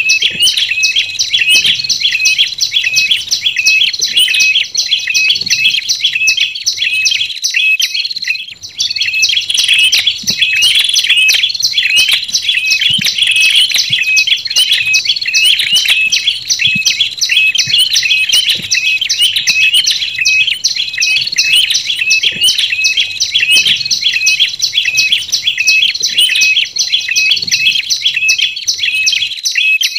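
Bird-lure recording of prenjak lumut and prenjak kepala merah (tailorbirds) calling: a fast, continuous string of sharp high chirps, about four to five a second, with a brief pause about eight seconds in.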